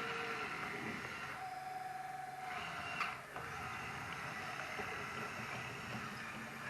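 Electric drive and hydraulic pump of a radio-controlled hydraulic construction model whirring, with a steady whine that holds for about a second and a sharp click about three seconds in.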